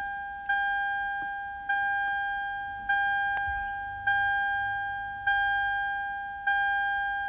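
A car's warning chime, a single bell-like ding repeating steadily about every 1.2 seconds, each one fading before the next: six dings in all.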